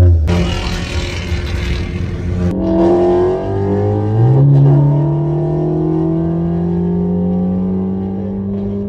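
Car engine under hard acceleration, its pitch climbing slowly and steadily for the last six seconds, after about two seconds of rougher, noisier engine and exhaust sound.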